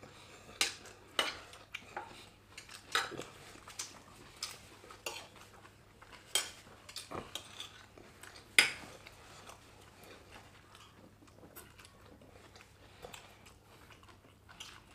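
Metal forks clinking and scraping on plates as two people eat, in scattered sharp clicks, the loudest about eight and a half seconds in, growing sparser in the last few seconds.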